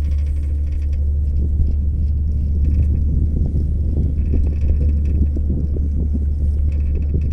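Steady low rumble inside a moving gondola cable car cabin, with faint crackling and a faint high tone that comes and goes a few times.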